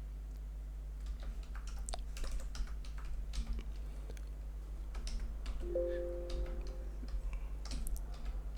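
Typing on a computer keyboard: irregular keystrokes clicking steadily for several seconds, over a constant low electrical hum.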